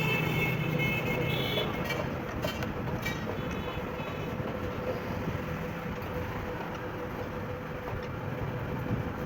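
Steady street traffic noise, with a vehicle horn sounding briefly at the start and a few sharp clicks a couple of seconds in.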